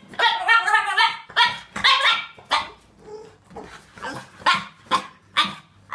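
A dog barking and vocalizing in a run of about eight short, pitched calls. The first call is drawn out with a wavering pitch.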